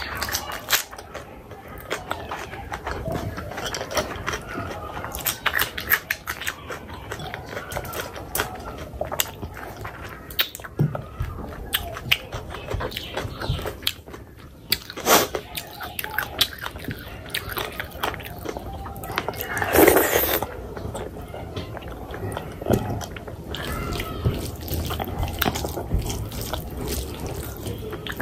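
Close-miked eating sounds of someone eating curry: wet chewing, lip smacks and quick clicks of the mouth, going on without a break, with one louder wet burst about two-thirds of the way through.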